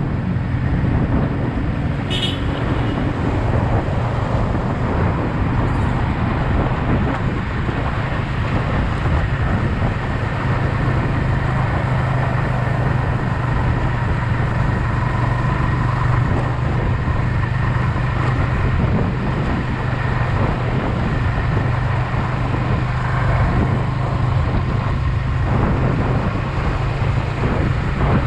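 Yamaha XSR 155's single-cylinder engine running at a steady speed, with wind and road noise on the helmet or bike-mounted action camera's microphone. A brief high beep about two seconds in.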